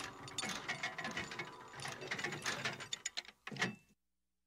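Tower clock's gear-and-ratchet mechanism clattering with rapid clicks, running on after its overlong bell-ringing test. It thins out, gives a last burst and stops dead about four seconds in.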